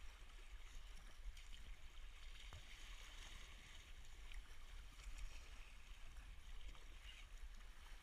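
Faint sea water washing and splashing against a sea kayak's hull as it is paddled through choppy waves, over a steady low rumble. The splashing swells about three seconds in and again near the end.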